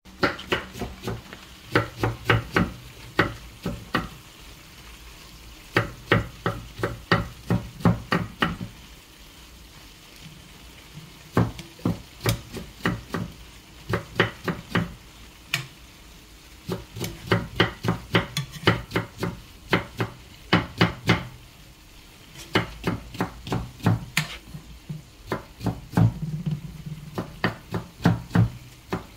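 Kitchen knife chopping onion on a wooden cutting board: quick strikes about three a second, in runs of a few seconds broken by short pauses.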